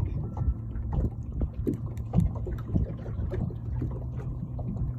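Water knocking and lapping against the hull of a small aluminium dinghy, with a low rumble of wind on the microphone and scattered short knocks.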